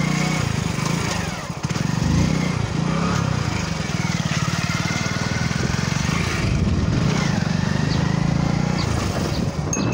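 A vehicle's engine running steadily at low speed, a low even putter.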